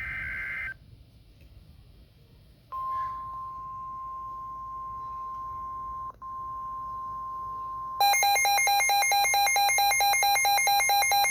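Emergency Alert System weather alert on NOAA Weather Radio. It opens with a short burst of the SAME digital header's warbling data tone. After a pause of about two seconds comes the steady 1050 Hz warning alarm tone, broken once for an instant. About eight seconds in, the Midland WR-120 receiver's own alarm cuts in with loud, fast-pulsing electronic beeps.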